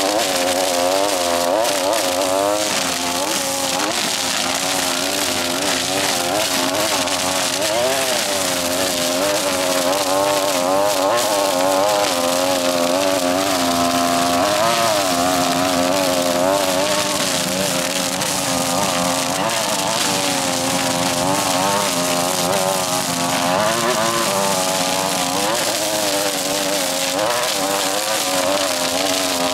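String trimmer engine running steadily at high throttle while cutting tall grass, its pitch wavering up and down as the load changes.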